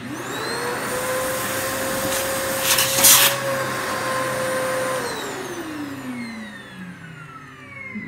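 Electrolux HidroVac A10 vacuum, refitted with a different motor, switched on and spinning up with a rising whine, then running steadily. About three seconds in there is a brief loud rush as sawdust is sucked up through the hose. The vacuum is switched off about five seconds in and winds down with a falling whine.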